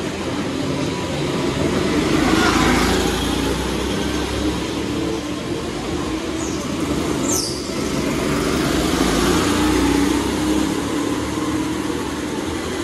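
Motor vehicles running with a steady engine hum, swelling about two seconds in, with a brief high squeal about seven seconds in.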